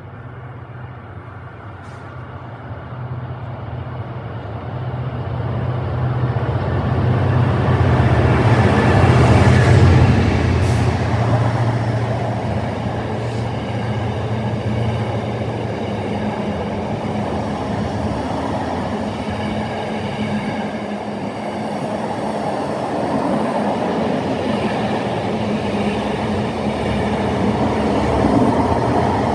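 A train approaching and passing through the station. Its noise builds over the first ten seconds, then stays loud and steady as the train runs by. A low hum is heard under it through the first half.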